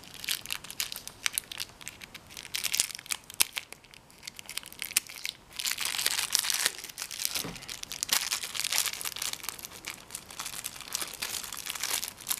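Small plastic bag crinkling and rustling as it is handled and cut open, a scatter of crackles that turns into denser crinkling about halfway in.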